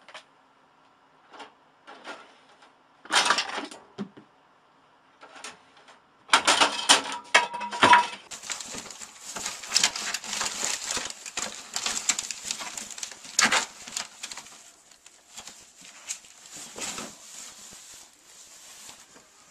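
Scattered knocks and rustling, then from about eight seconds in a long stretch of dense crinkling and rustling: a ferret rooting through a towel in a plastic-lined wastebasket.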